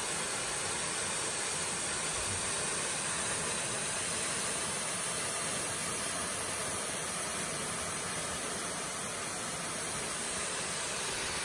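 Steady rushing hiss of a waterfall pouring into its plunge pool, even and unbroken.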